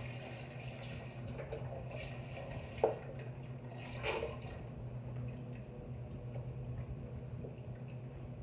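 Bone broth poured from a carton into a pot, a steady splashing trickle of liquid, with a single sharp knock about three seconds in. A steady low hum runs underneath.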